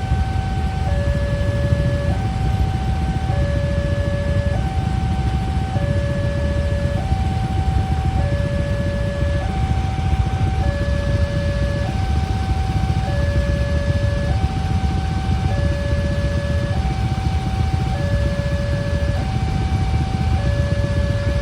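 Railway level-crossing barrier alarm sounding: an electronic two-tone signal alternating high and low, each tone held about a second and a quarter, over a steady low rumble. It is the warning that a train is approaching and the barriers are closing.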